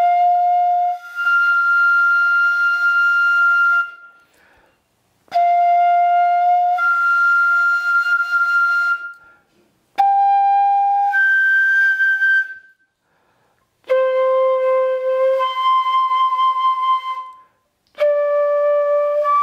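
Bamboo pífano (transverse fife) playing five long notes with short breaths between, the first on F. Each one starts in the first octave and, after a second or so, jumps up an octave to the second: the embouchure is tightened and the airstream made thinner and faster.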